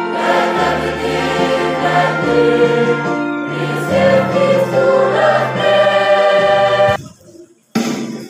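A choir singing a hymn in full held chords over a low sustained accompaniment. The singing cuts off abruptly about seven seconds in, leaving a near-silent gap of under a second before sound resumes near the end.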